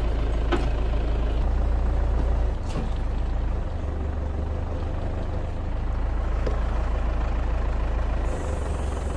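Isuzu Elf crane truck's engine running steadily under the load of the crane's hydraulics, its low drone stepping up and down in pitch a few times as the crane is worked. Two brief sharp knocks come in the first three seconds.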